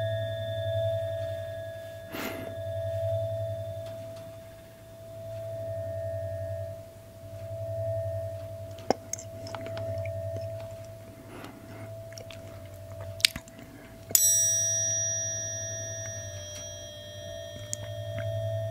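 Metal tuning forks ringing: a low tone that slowly swells and fades and a steady higher tone sound throughout, with a few soft clicks and mouth sounds. About fourteen seconds in a fork is struck sharply, adding a bright metallic ring that fades over several seconds.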